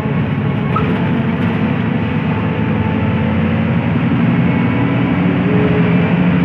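Intercity bus on the move: a steady engine drone mixed with road noise.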